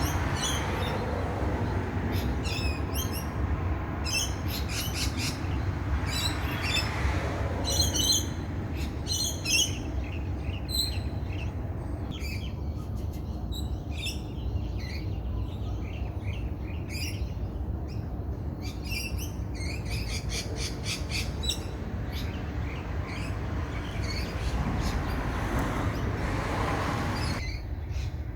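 Wild birds singing, with many quick, repeated chirps and trills following one another, over a steady low rumble.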